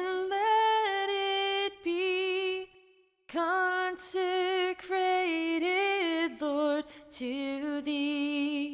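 Outro music: a slow melody sung by a woman's voice in long held, wavering notes, in phrases broken by a short pause about three seconds in.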